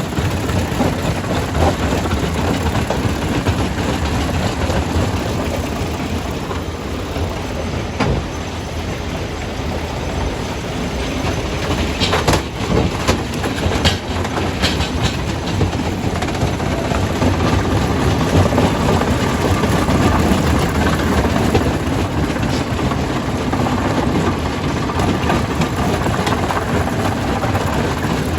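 Primary jaw crusher crushing rock: a continuous heavy rumble and rattle, with sharper knocks and cracks of stone about a third of the way through and again around the middle.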